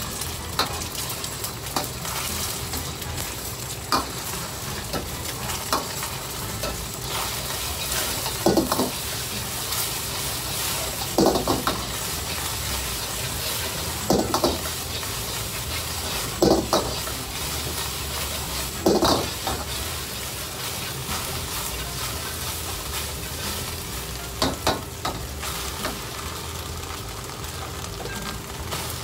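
Beaten egg and rice frying with a steady sizzle in a hot steel wok as a metal ladle stirs and scrapes it, with a sharp clang of the ladle striking the wok every few seconds.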